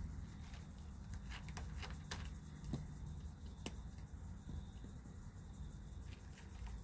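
Low-level room noise: a steady low hum and a thin, steady high tone, with a few faint, scattered clicks.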